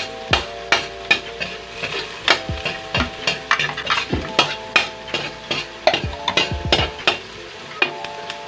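Metal spatula repeatedly scraping and knocking against a stainless steel wok while chopped garlic and onion fry in oil with a light sizzle.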